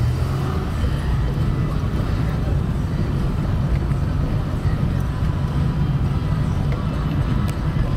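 Steady low rumble of the engine and road noise heard inside a moving car's cabin, the car creeping along in traffic.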